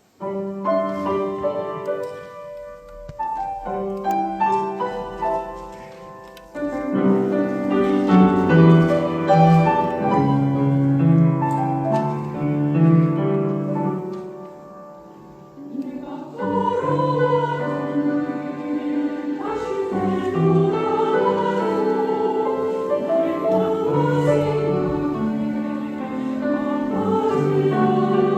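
Church choir singing an anthem with piano accompaniment. It opens with a piano introduction, and the full sound swells about six seconds in.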